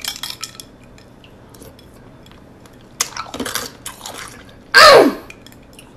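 A few light clicks of a bowl being handled, then ice cubes being crunched between the teeth about three seconds in, followed by a short, loud exclamation that falls in pitch.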